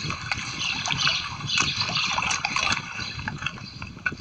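Water splashing and sloshing, with irregular crackling splashes over a steady watery rush.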